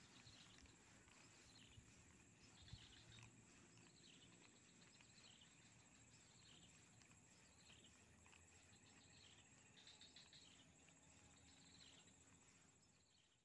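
Near silence: faint outdoor wildlife ambience, with short chirps repeating about once a second over a steady high-pitched hum, fading out near the end.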